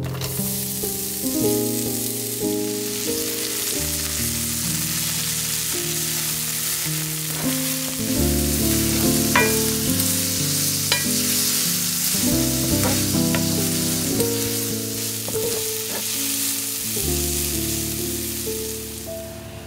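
Sliced red onion sizzling in hot oil in a frying pan, starting as it is tipped in and going on steadily as it is stirred with a wooden spatula, with a few light clicks near the middle. Background music plays underneath.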